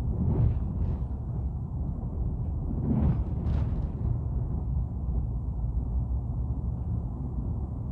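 Steady low rumbling ambient noise, with a few brief louder swells of hiss about half a second, one second and three seconds in.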